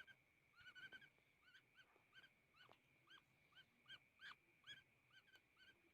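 Young hand-fed woodpecker calling: short, faint, arching notes repeated about two to three times a second, over a steady high-pitched whine.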